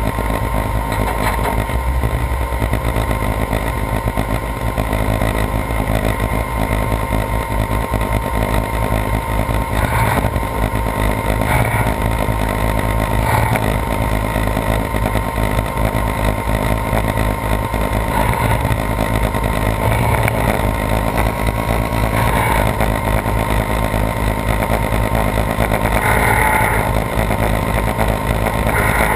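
A vehicle engine running steadily at a constant pace, with a faint steady whine over the rumble.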